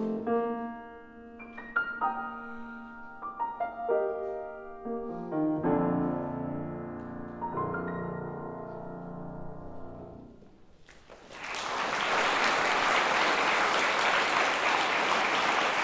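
Four-hand piano duet on a Steinway grand: the closing chords are played and left to ring, dying away about ten seconds in. About a second later audience applause starts and continues steadily, louder than the piano.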